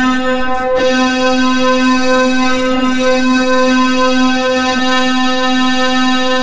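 Black MIDI playback of a noise-challenge file on a MIDI piano: thousands of notes sound at once and merge into one loud, steady tone. There is a brief break about three-quarters of a second in.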